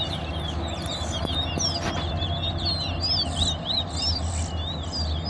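Towa-towa finches in a song contest, singing rapid, repeated chirping notes that sweep up and down, over a steady low hum.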